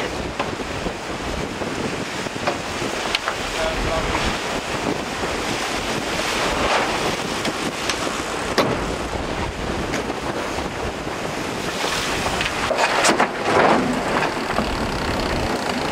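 Wind buffeting the microphone and water rushing past the hull of the Groupama 3 racing trimaran under sail, with a few sharp knocks.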